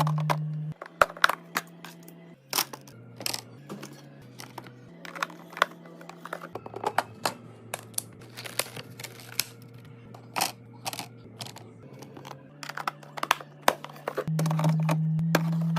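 Background music with a low held note that steps from pitch to pitch. Over it come many short clicks, taps and crinkles of household containers and packaging being handled and set down during restocking.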